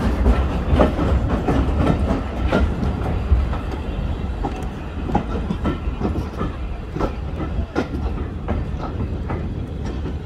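Passenger train running on the rails: a steady low rumble with irregular clicks and knocks of the wheels over the track, as the train comes into the station.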